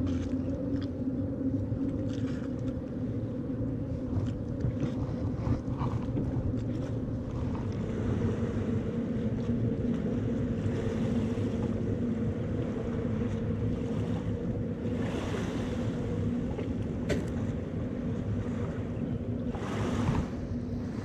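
A steady engine drone holding one low pitch throughout, with brief louder rushes of noise about eleven, fifteen and twenty seconds in.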